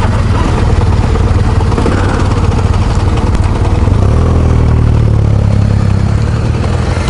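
Adventure motorcycle's engine running as it rides along a dirt track, heard from the rider's own bike; the engine note settles into a steady hum about four seconds in.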